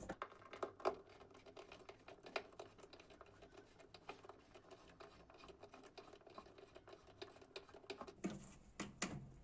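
Faint, irregular clicks and scrapes of a screwdriver driving the screw that holds a top-loading washing machine's pulsator in place.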